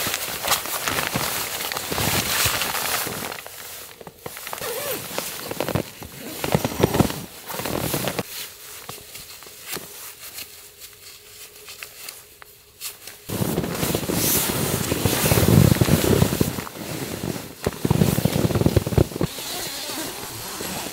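Crinkly rustling of nylon fabric as a down sleeping bag, a down jacket and the tent are handled and shifted. The rustling comes in uneven bursts, dies down to a quiet lull through the middle, and grows loud again.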